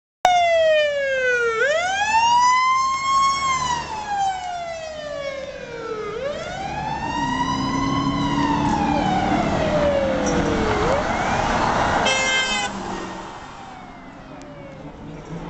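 Emergency-vehicle siren wailing, its pitch sliding slowly up and down through about three cycles, with a short horn-like blast about twelve seconds in. Vehicle engines rumble low underneath.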